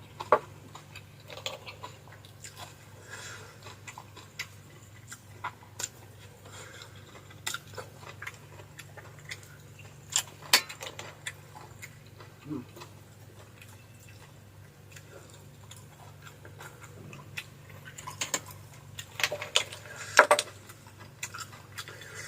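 Close-miked eating: chewing with scattered sharp clicks and taps, the loudest cluster near the end, over a steady low hum.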